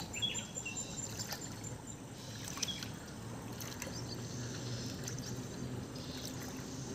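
Faint creek sounds: water sloshing and splashing around people wading with a net, under a low steady hum, with a rapid high chirping in the first two seconds.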